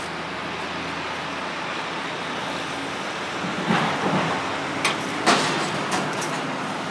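Steady outdoor traffic noise, with a louder stretch and a few sharp knocks a little past the middle.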